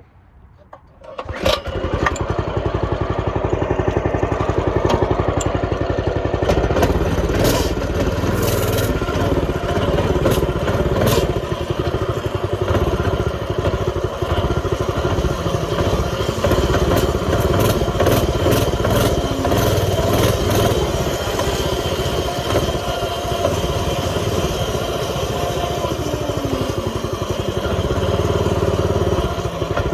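X1 pocket bike's small two-stroke engine starts up about a second in, then keeps running, its revs rising and falling.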